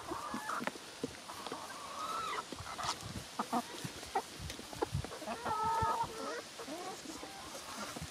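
Backyard chickens clucking and making short calls while they eat, with scattered sharp pecking taps. A longer, louder call comes about five and a half seconds in.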